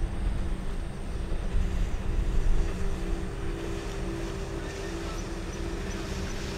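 Steady engine hum over a low, uneven rumble; the rumble eases about two and a half seconds in while the hum carries on.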